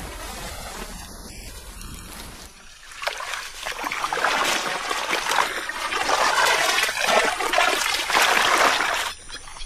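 Shallow muddy marsh water splashing and trickling as an arm moves through it among water hyacinth, starting about three seconds in after a quieter opening.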